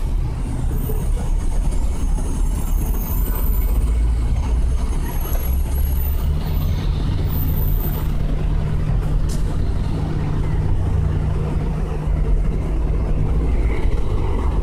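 City street traffic: a steady low rumble of idling vehicle engines, with a steady engine hum joining about six seconds in.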